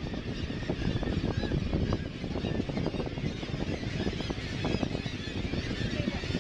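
Seabirds crying from a nesting colony over the steady rumble of a tour boat's engine and wind on the microphone.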